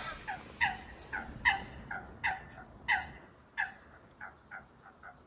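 A bird calling: a quick series of short, falling calls, about two or three a second, that fade away after about three seconds, with faint high chirps near the end.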